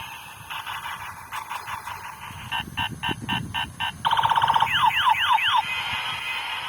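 Battery-powered toy gun playing its electronic sound effects through a small speaker: a run of about six quick beeps, a fast rattling burst about four seconds in, then four swooping siren-like tones, followed by a steady warbling tone.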